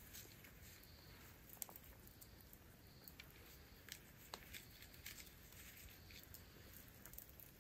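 Faint, irregular clicks and crackles of dried corn kernels being twisted off the cob by hand and dropping onto the ground.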